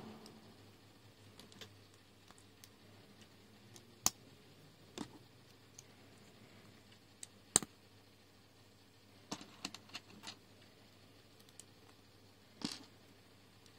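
Small plastic LEGO bricks clicking as they are handled and pressed together by hand: scattered sharp clicks a second or more apart, with a quick run of several about two-thirds of the way through.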